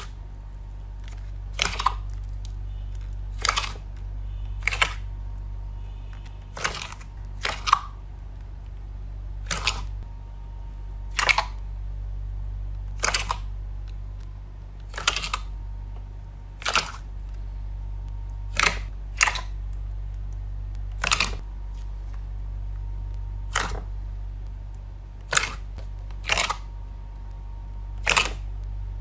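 Slime being pressed and handled, giving sharp clicking pops about every one and a half to two seconds, some in quick pairs, over a steady low hum.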